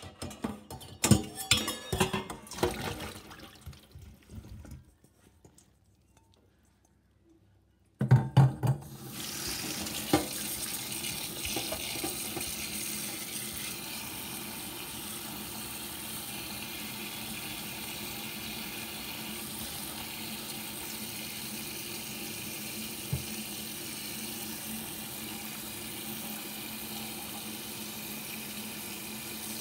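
Kitchen tap running from about eight seconds in, water splashing steadily onto strawberries in a stainless steel colander in a metal sink.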